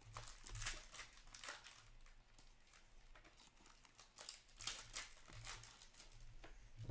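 Upper Deck SP Authentic hockey cards being handled and slid onto a stack: a run of soft, faint paper rustles and swishes, one every second or so.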